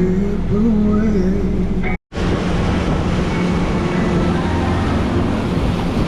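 Boat engine running steadily under way, with water and wind rushing. The sound cuts out for a moment about two seconds in, then carries on the same.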